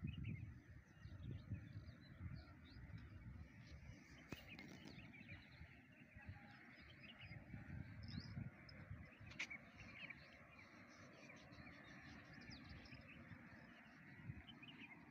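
Faint outdoor ambience with scattered bird chirps and a couple of soft clicks.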